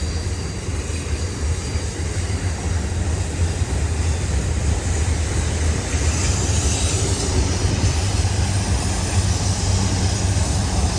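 A long, loaded freight train of auto-rack cars rolling past, a steady continuous rumble of the cars on the rails.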